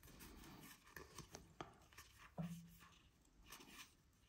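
Faint rustling and a few light clicks of a stack of baseball cards being thumbed through by hand, with a brief low hum a little past halfway.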